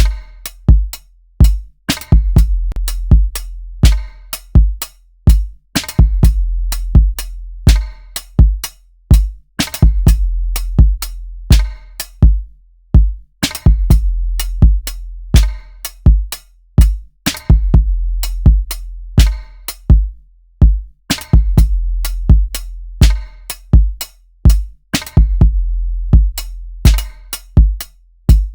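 A programmed drum-machine beat from Native Instruments Maschine looping. A deep kick with a long low tail is set against sharp snare and hi-hat hits, and the pattern repeats every few seconds.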